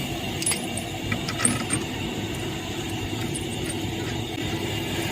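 A few light metallic clinks of tools or parts being handled, over a steady mechanical hum. The clinks come about half a second in, a cluster between one and two seconds, and a couple more past three seconds.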